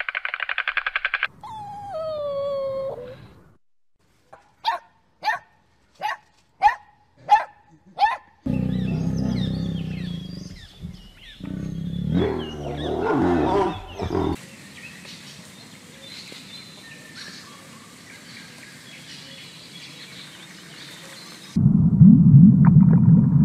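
A run of separate animal sounds: a rapid clattering, as of a white stork's bill, to about a second in; a falling call, then six short sharp calls; then a white tiger's low growls and roars. Near the end, a loud low underwater rumble starts abruptly.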